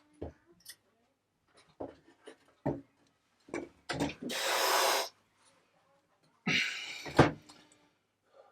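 A motorcycle engine being worked into its frame by hand: scattered clunks and knocks, two heavy breathy huffs of effort, and a sharp knock near the end, the loudest sound.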